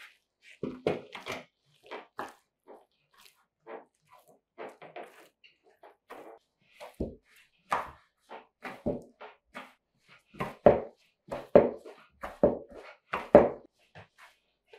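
Hands mixing and kneading stiff flour dough in an enamel bowl: irregular soft thuds and rubbing as the dough is pressed and turned against the bowl, heavier and more frequent in the second half.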